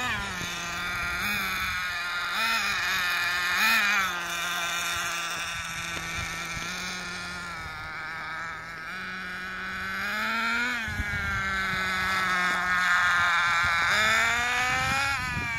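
Small nitro (glow-fuel) engine of a 1/10 Thunder Tiger Tomahawk RC on-road car running with a high, buzzy whine. There are three quick throttle blips in the first four seconds, then a long rise in pitch that drops off sharply about eleven seconds in. The pitch climbs again near the end as the car speeds along the road.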